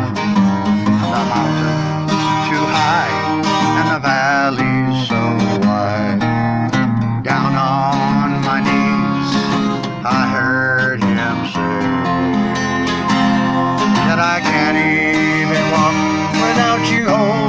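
Country gospel music without vocals: strummed acoustic guitar chords under a wavering lead melody line.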